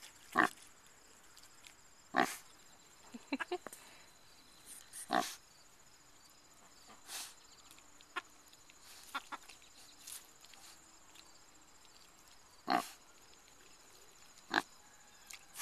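Red wattle pigs rooting in the dirt, giving a handful of short grunts spaced irregularly a couple of seconds apart.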